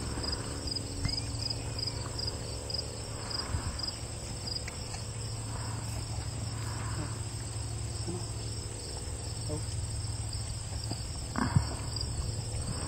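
Insects chirping in a steady rhythm of high pulses, about three a second, over a low steady hum, with one sharp knock about eleven and a half seconds in.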